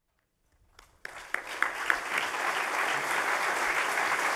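Audience applauding: a few single claps about a second in, quickly filling out into steady clapping.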